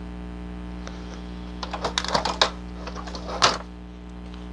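A paper picture being trimmed and handled: a quick run of crisp clicks and rustles about halfway through, then one louder crackle, over a steady low mains hum.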